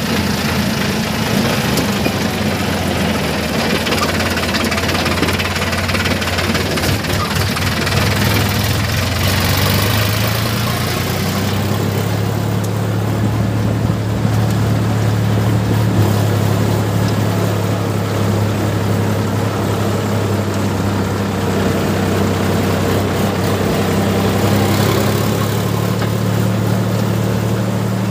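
Sonalika tractor's diesel engine running at a steady, even speed while the tractor drives along. A hiss over the engine hum falls away about eleven seconds in.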